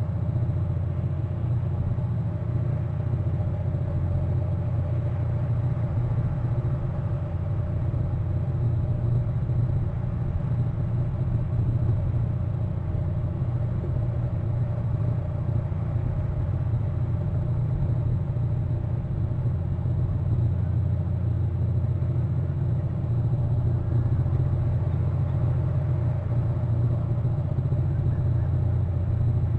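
Steady low rumble with a faint constant hum, unchanging throughout.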